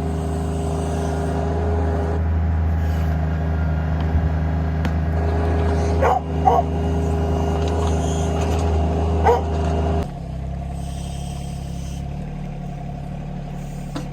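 A motor engine running steadily, its note dropping lower and quieter about ten seconds in, with a dog barking three short times around the middle.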